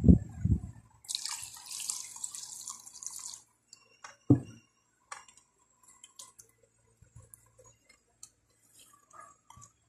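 Water poured from a cup into a plate of dark spice paste, a splashing pour of about two seconds starting a second in. Then a spoon stirring the paste, with a sharp knock a little after four seconds and light clinks against the ceramic plate.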